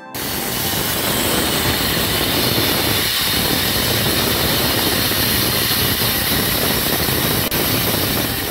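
Sawmill band saw cutting lengthwise through a thick teak beam as it is pushed past the blade: loud, steady machine noise that starts abruptly.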